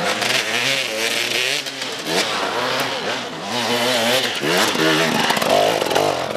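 Enduro motorcycle engines revving hard under load on a steep dirt climb, the pitch rising and falling again and again as the throttle is worked and the rear wheel spins.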